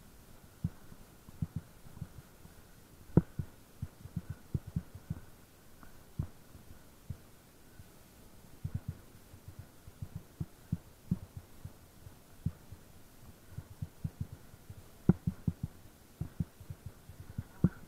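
Irregular dull thumps and knocks, several each second, a few of them sharper, over a faint steady high hum.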